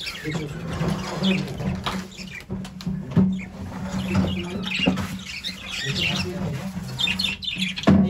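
A cage of budgerigars chirping and chattering with many short high chirps, over a steady low hum.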